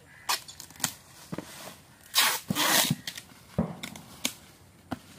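Packing tape torn off its roll in a few loud rasping pulls, the longest about two seconds in, while cardboard boxes are sealed, with scattered knocks and clicks of the cardboard being handled.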